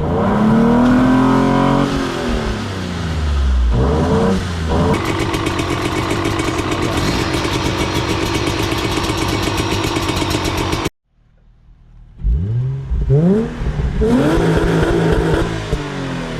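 Car engine revving hard. Its pitch swings up and down in the first two seconds and again around four seconds in, then holds high and steady for several seconds. It cuts off abruptly about eleven seconds in and revs up again from about twelve seconds.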